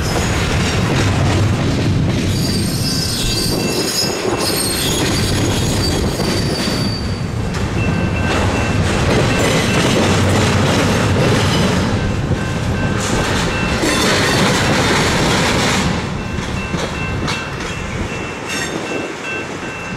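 Double-stack intermodal freight train's well cars rolling past on a curve: a steady rumble of steel wheels on rail with high-pitched wheel squeal. It drops somewhat quieter about 16 seconds in.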